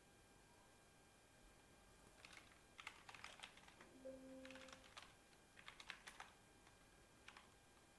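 Faint typing on a computer keyboard: keystrokes clicking in three or four quick bursts as short terminal commands are typed. A brief low steady tone sounds about four seconds in.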